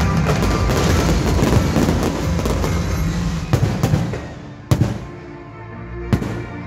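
Fireworks display: a dense barrage of bangs and crackling for about four seconds, then thinning to a few single sharp bangs, with music playing underneath.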